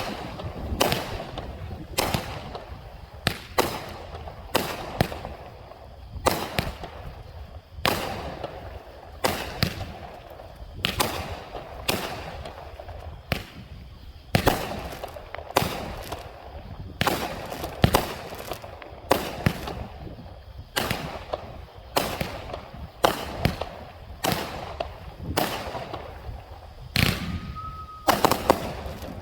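A 200 g consumer fireworks cake (1.4G) firing a long string of shots, one to two a second, each sharp report followed by the crackle of the bursting shells.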